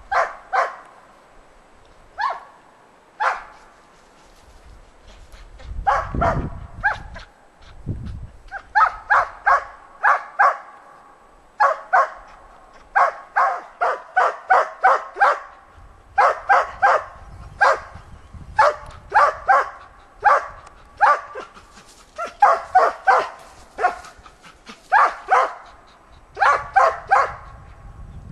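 A hunting laika barking at a lynx it has treed. The barks come singly and spaced at first, then in quick runs of several barks a second, the steady bay that holds the game in the tree for the hunter.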